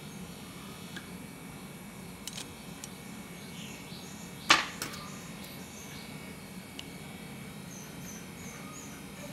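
Kitchen utensils handled on a glass-topped table: a few light clicks and one sharp knock about halfway through, over a low steady hum, with faint high chirps.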